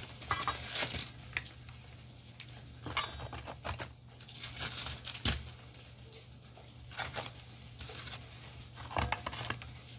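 Frozen pollack fillets being handled and laid into a stainless steel bowl: scattered plastic crinkling and rustling with light taps and clicks, a few sharper ones about three, five, seven and nine seconds in.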